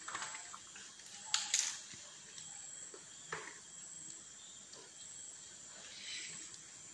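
Banana leaf rustling and crinkling in short bursts as it is handled and folded by hand; the loudest two crackles come about a second and a half in, over a faint steady hiss.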